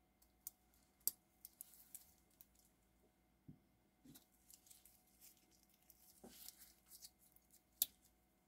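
Faint clicks and rattles of stainless-steel watch bracelets and fold-over clasps being handled, as a Rolex Submariner is unclasped and a Zelos Swordfish bracelet is clasped shut on the wrist. There is a sharp click about a second in and another near the end.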